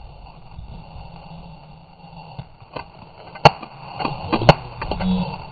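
Rustling movement of a player on the forest floor, then about half a dozen sharp cracks of airsoft gunfire from about three seconds in, the loudest about half a second later.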